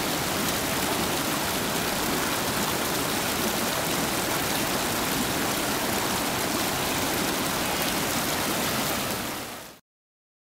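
Steady rushing of whitewater rapids on the Cossatot River, fading out near the end into silence.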